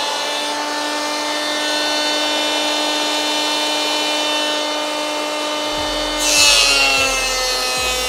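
Bosch GHO 26-82 D 710 W electric planer running free with a steady high motor whine. About six seconds in, a board passes over the cutter drum: a short burst of shaving noise, and the motor pitch dips slightly under the load.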